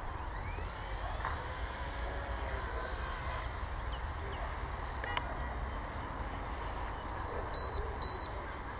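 Wind rushing over the onboard camera's microphone with the steady buzz and faint high whine of a Blade mCP X micro helicopter's motors and rotors in flight. Two short high beeps come near the end.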